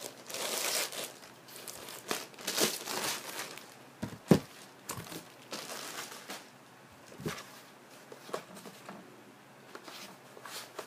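Clear plastic bag crinkling and tearing as a laptop is pulled out of it. The crinkling is densest in the first few seconds and then comes in scattered bits, with a sharp knock about four seconds in.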